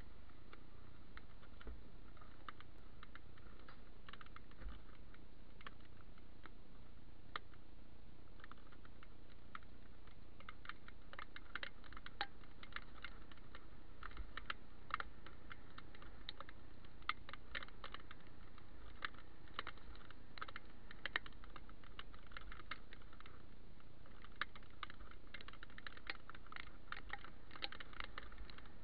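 Raindrops tapping on a head-mounted camera's housing while cycling in rain: irregular light clicks that grow busier from about a third of the way in, over a steady low rumble of wind and road noise.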